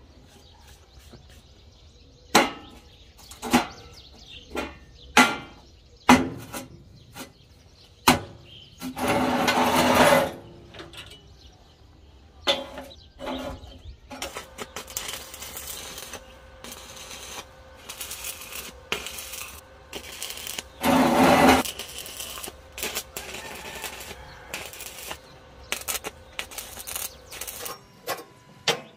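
Metal pieces clanking and knocking, with several sharp separate strikes early on. Two longer scraping bursts come about a third of the way in and again about two-thirds in, and lighter clicks and rattles follow.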